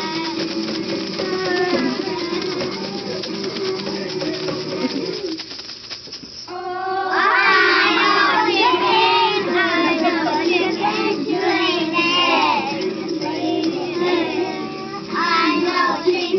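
A group of preschool children singing a song together, with a short lull about six seconds in, after which the singing comes back louder.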